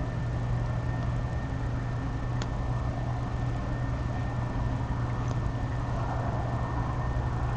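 Steady low hum and hiss with a thin, steady high-pitched whine over it, and a couple of faint ticks.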